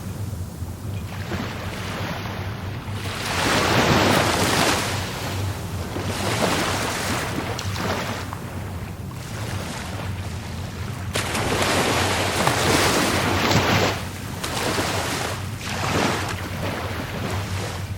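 Rough sea surf breaking on the shore in repeated surges. The biggest waves come about four seconds in and again from about eleven to fourteen seconds, with smaller ones between. A steady low wind rumble on the microphone runs underneath.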